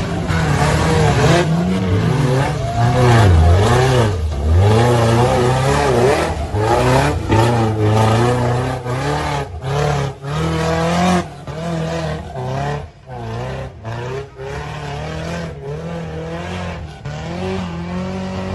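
Engine of a lifted mud truck revving hard, its pitch rising and falling over and over as the big tires spin and fling mud, with frequent brief drops as the throttle lets off.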